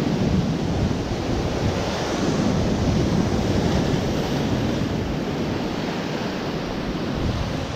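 Surf breaking and washing against a rocky shore, with wind buffeting the microphone. The noise is steady, swelling a little now and then.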